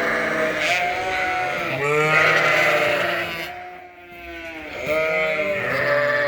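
A barnful of sheep bleating loudly all at once, many overlapping calls: the flock calling for feed because they think it's dinner time. The din drops briefly about two thirds of the way through, then picks up again.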